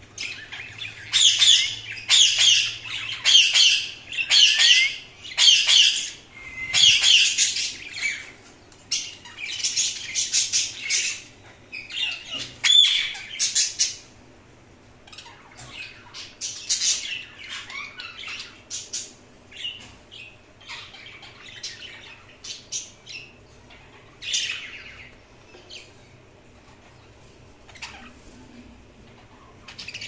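Indian ringneck parakeet giving a run of loud, high-pitched calls, about one a second, through the first half, followed by softer, scattered chirps.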